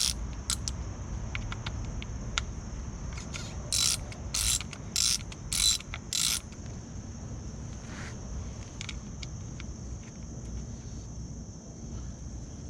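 Hand ratchet wrench clicking in short strokes: a run of five about half a second apart through the middle, with scattered small metal clicks. A steady high-pitched hum runs underneath throughout.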